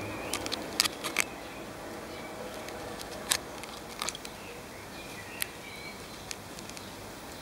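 Steady background hiss with a handful of sharp clicks scattered through it, several in the first second and a half and single ones later, and faint short chirps behind it.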